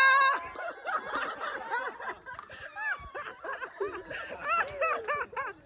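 A small group of people laughing and whooping, with short rising-and-falling voice calls coming quickly one after another.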